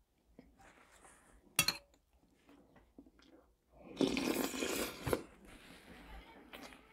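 A spoon clinks against a ceramic soup bowl about one and a half seconds in. About four seconds in comes a loud, noisy slurp of cabbage soup taken from the spoon, lasting about a second, followed by faint rustling of a paper napkin.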